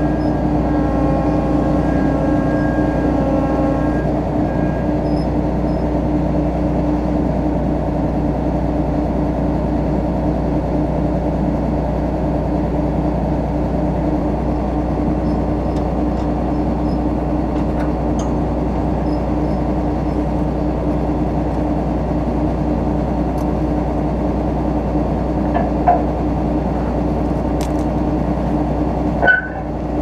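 John Deere 9500 combine's diesel engine running steadily, a constant low mechanical hum, with a couple of short knocks near the end.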